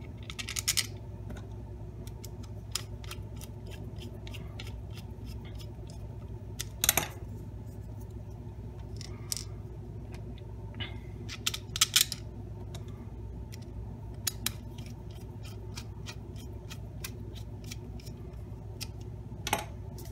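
Scattered light clicks and taps of hard 3D-printed plastic parts handled against each other, an end cap being fitted onto a linear bearing carriage, with a few louder clicks spread through. A steady low hum runs underneath.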